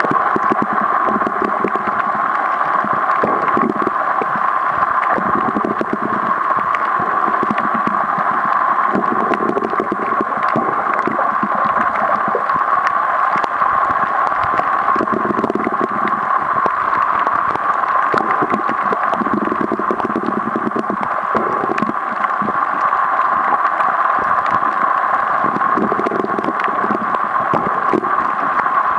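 Underwater sound picked up by a snorkeler's camera over a coral reef: a steady muffled hiss full of scattered clicks and crackles, with a low muffled swell coming and going every few seconds.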